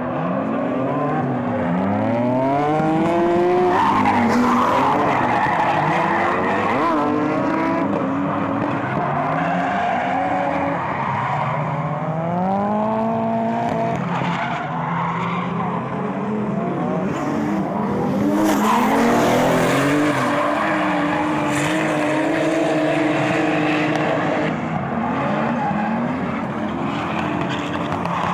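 Drift cars sliding through a corner, their engines revving up and down again and again, with tyres squealing and skidding throughout.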